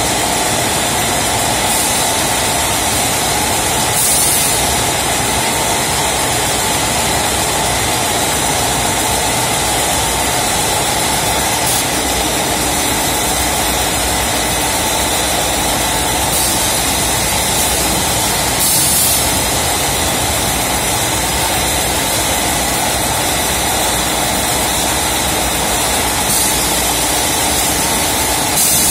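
Large vertical form-fill-seal bagging machine running steadily, a constant mechanical hum, with short hissing bursts every few seconds.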